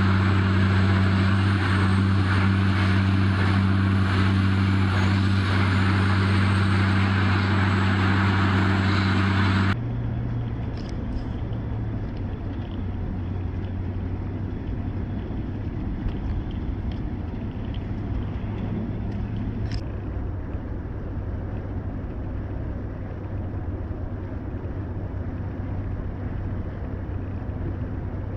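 Motor vehicle engine and road noise, a steady low drone. About ten seconds in it cuts abruptly to a quieter, steady engine hum.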